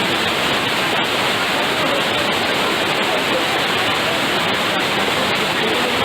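Waterfall: a steady rushing of falling water, which cuts off abruptly at the very end.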